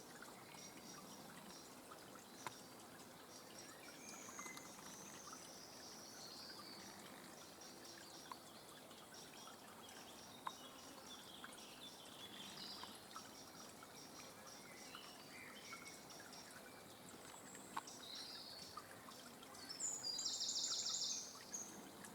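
Wild songbirds singing faintly over a soft steady hiss, with a louder, fast trill of evenly repeated high notes about twenty seconds in and a few faint clicks.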